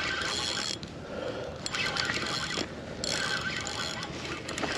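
Fishing reel whirring in three stretches of about a second and a half each, with short breaks between, as line is worked against a hooked sturgeon on 20-pound braid.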